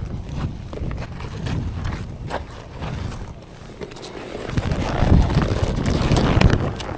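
Hooves of a ridden horse knocking irregularly on the ground, over a low rumble on the microphone that swells about five seconds in.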